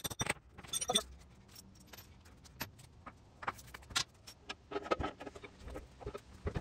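A few sharp metal-on-metal taps in the first second as a hammer drives a setting rod into a drop-in anchor in the concrete floor, then scattered light metallic clinks and taps as tools and the steel lift post base are handled.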